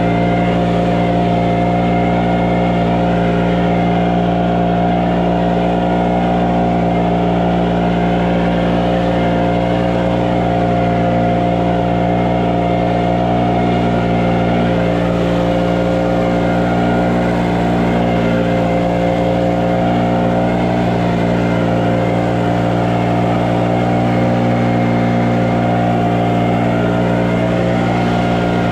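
An engine running steadily at a constant speed, with an even pitch that does not change.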